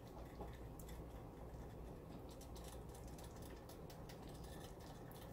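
Faint, irregular soft clicks and wet patter as a spoon works through thick barbecue sauce in a stainless steel pot, over a low steady hum.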